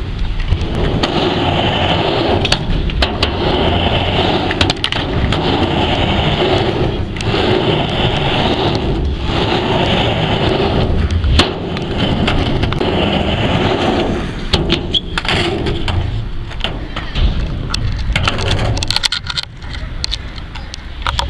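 Skateboard wheels rolling back and forth across a mini ramp, the rolling noise swelling and dipping about every two seconds as the rider goes from wall to wall. Sharp clacks of the board hitting the ramp and coping come through, more often in the second half.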